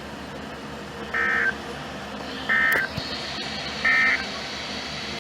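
NOAA Weather Radio SAME end-of-message data bursts: three short digital tone bursts, each about a third of a second and spaced about a second and a half apart, over the steady hiss of the radio broadcast. They mark the end of the required weekly test message.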